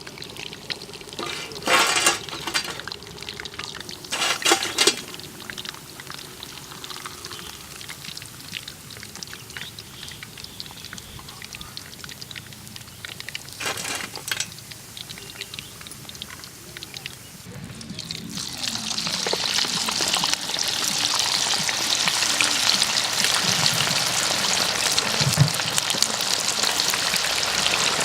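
Batter-coated chicken pakora deep-frying in hot oil: a low sizzle with a few brief louder bursts, then about two-thirds of the way through the sizzling swells into a loud, dense crackle that continues.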